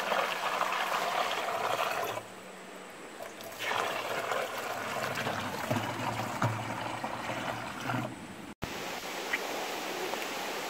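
Water poured from a gourd bowl through a funnel into a plastic water jug, splashing and trickling in two pours with a short pause between. About eight and a half seconds in, it cuts to the steady rush of a river.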